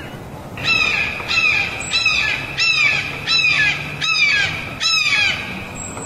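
Hawk calling: a series of seven harsh, descending cries, about one and a half a second, starting about half a second in.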